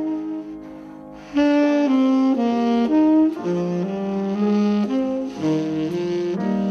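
Tenor saxophone played solo. A held note dies away, then from about a second and a half in it plays a melodic phrase of short notes.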